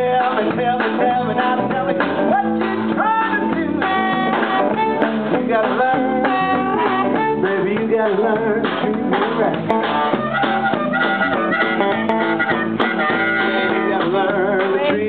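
Live blues band playing: electric guitars, bass and drum kit, with a harmonica wailing over them, in a steady, full groove.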